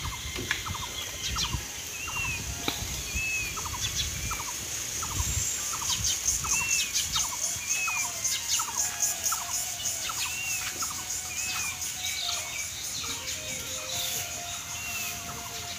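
Birds calling: a steady run of short, falling notes about two a second, with higher arched whistles every couple of seconds over a high, rapid ticking. A few low thumps come in the first five seconds.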